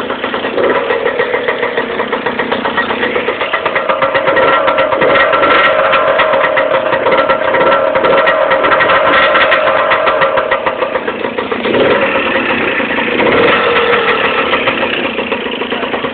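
A Zündapp moped's small two-stroke engine running through an aftermarket Corsa tuning exhaust. It is held at higher revs for several seconds, drops back, then is blipped twice before settling.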